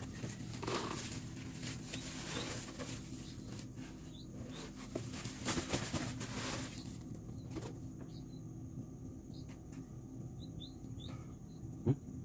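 Live mealworms being scooped from a wooden tray with a plastic scoop and poured into a plastic bucket: a dry rustling and pattering for about the first seven seconds. Then it goes quieter, with a few faint high chirps.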